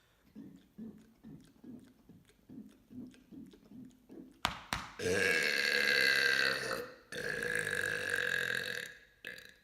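A man's long, loud burp of about four seconds, with a brief break near the middle. Before it come some four seconds of soft, quick gulping sounds, a few a second, and a sharp click just before the burp.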